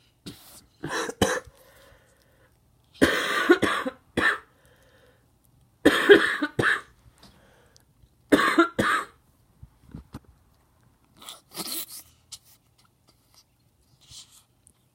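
A person with a cold coughing in repeated fits, about five loud bouts a few seconds apart, the last ones weaker.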